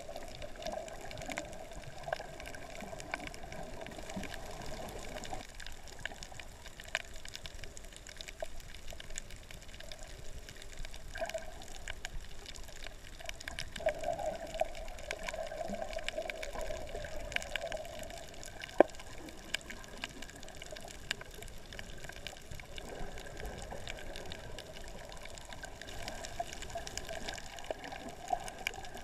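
Underwater ambience on a shallow reef: a steady wash of water, swelling and easing, with scattered sharp clicks and crackles throughout.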